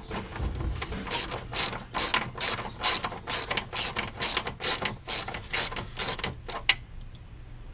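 Hand socket ratchet on an extension clicking in a steady run of strokes, about two or three a second, as a bolt on a Corvette's dry sump tank is backed out; the clicking stops a little before the end.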